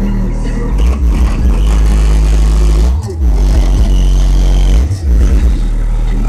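Hip hop music with very heavy bass played loud through a car's subwoofers, heard from outside the car. Deep bass notes change every second or two, with a couple of sliding notes.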